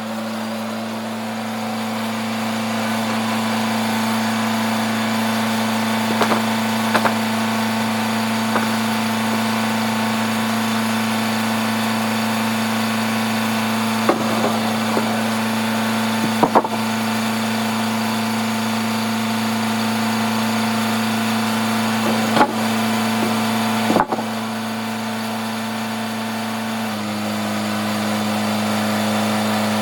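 Sawmill machinery running with a steady engine drone, broken by a handful of sharp knocks and clunks; the drone shifts in tone near the end.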